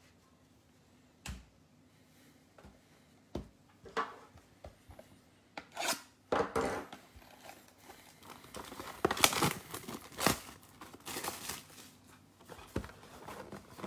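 A Panini Mosaic football blaster box being torn open and its wrapping crinkled. A few sharp knocks of the box being handled come first, then from about six seconds in the crinkling and tearing turns busy and continuous.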